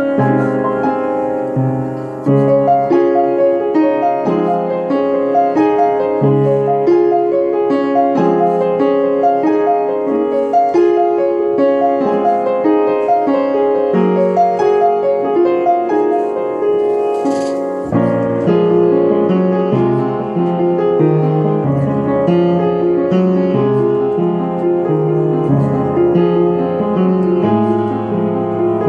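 Piano playing a gentle, Christmas-sounding piece: a melody over a low bass line that moves back and forth, changing about once a second.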